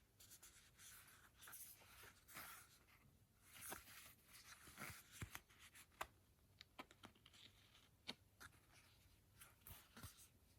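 Faint rustling of packaging, with scattered light clicks and taps as things are handled.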